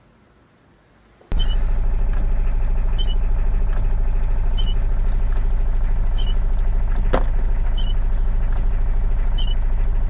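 A motor vehicle's engine running steadily. It cuts in suddenly about a second in, with a short squeak repeating about every second and a half and a single click near the middle.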